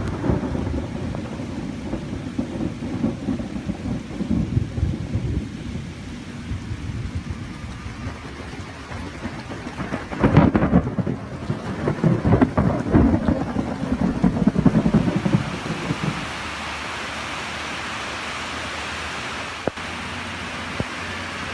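Thunder rumbles low and uneven, swelling louder about ten seconds in. About sixteen seconds in it gives way to steady heavy rain hiss, with a single sharp click near the end.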